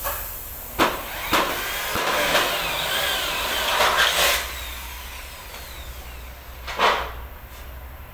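A power drill works on an aluminium door frame, whirring in a noisy stretch from about one to four and a half seconds. Several sharp knocks sound, one about a second in, another just after, and one near seven seconds.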